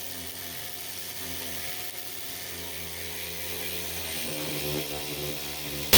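Small motor of a cordless electric ratchet whirring steadily, its pitch and loudness shifting about four seconds in. A much louder power-tool sound cuts in suddenly at the very end.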